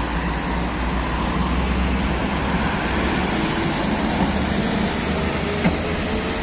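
Articulated MAZ diesel city bus driving past close by: engine running and tyres on the road, the engine note rising a little in the second half as it picks up speed.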